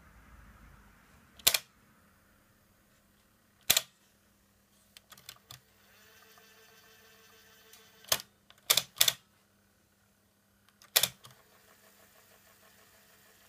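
Blaupunkt New York SQR 05 car cassette radio giving loud, sharp clicks at irregular intervals, about six in all, over a faint steady hum.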